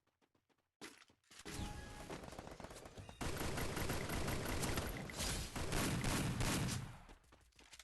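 Rolling thunder: a long crackling rumble that builds about a second in, grows louder for several seconds, then dies away near the end.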